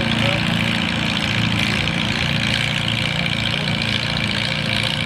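Farmall tractor engine running steadily at low speed while it pulls a weight-transfer sled along a dirt track, with no revving up or down.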